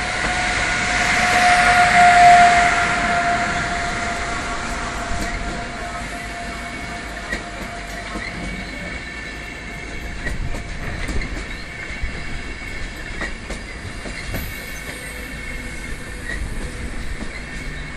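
Siemens EU44 electric locomotive passing close by with a steady whine, loudest about two seconds in. Its passenger coaches then roll past with a continuous rolling rumble, a thin high wheel squeal and irregular clicks of wheels over rail joints as the train slows into the station.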